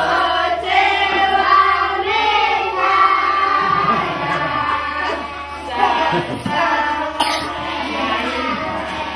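A group of young schoolchildren singing a song together, with some hand-clapping.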